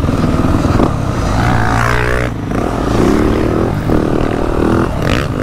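2024 Yamaha YZ450F's single-cylinder four-stroke engine revving under throttle while riding a motocross track. The pitch climbs over the first couple of seconds, breaks off briefly a little after two seconds in, then picks up and rises and falls again.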